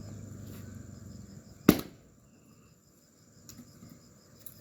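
A single sharp blow into a log of red seleman firewood about a third of the way in, as it is split, with a short ring after it. Insects keep up a steady high buzzing behind.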